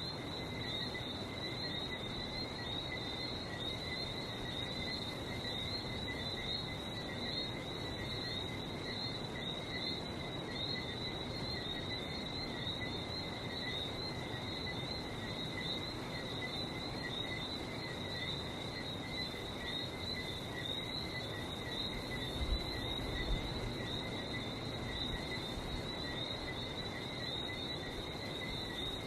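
A dense, unbroken chorus of Lesser Antillean whistling frogs: many high, wavering whistles blend into one continuous shrill band, over a steady wash of sea surf. Two brief low bumps come about three-quarters of the way through.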